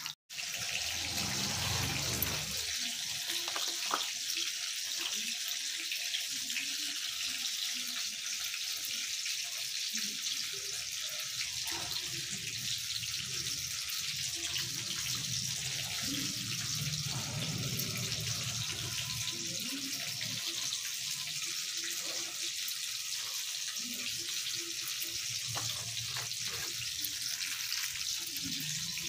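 Steady sizzling hiss of hot oil frying, with scattered soft knocks and scrapes of a spoon mixing in a steel bowl.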